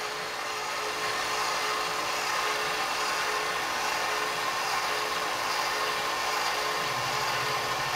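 Sherline mill's spindle motor running steadily, with an even whine. The cutter is taking a first skim pass only a couple of thousandths deep along a shaft, just knocking off the high spots.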